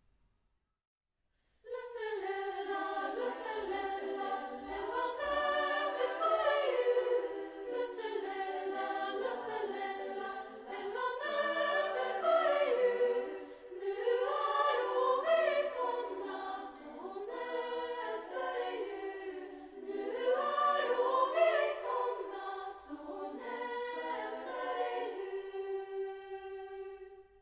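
A choir of young school voices singing a Swedish Lucia song in several phrases, starting about two seconds in and closing on a long held note.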